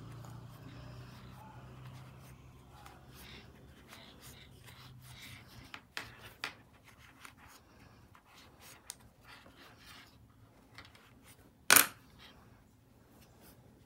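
Soft rubbing and scratching of fibre stuffing being packed into a crocheted amigurumi piece with a wooden stick, with a few small clicks and one sharp knock near the end.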